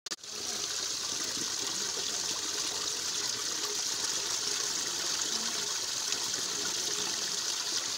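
Irrigation water pouring from a concrete pipe outlet and splashing into a pool in a field channel: a steady rush of falling water.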